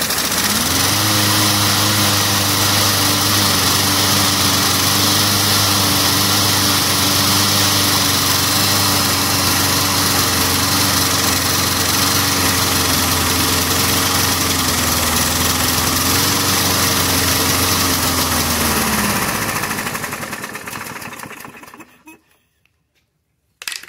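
Push mower's small engine picking up speed and running steadily for about twenty seconds, then slowing and dying out: the mower won't stay running even on brake parts cleaner sprayed into the carburetor, typical of carburetor jets clogged by ethanol gas left sitting. A short knock near the end.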